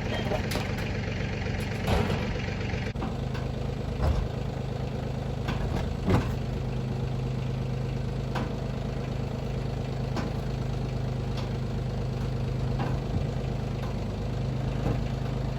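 A steady engine-like motor hum, with a few short knocks about two, four and six seconds in.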